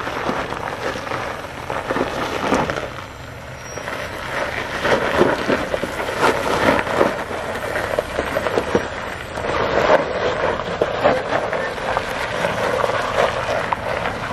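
Jeep Gladiator crawling down a loose dirt and gravel slope, its tyres crunching and crackling over stones and grit, most densely in the middle and again near the end.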